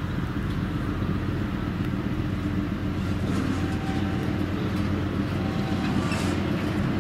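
Diesel train running, its engine giving a steady low drone over the noise of the ride.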